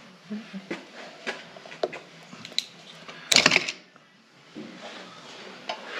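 Hand tools and metal parts clicking and clinking during the teardown of a tractor governor, with a louder metallic clatter a little over three seconds in.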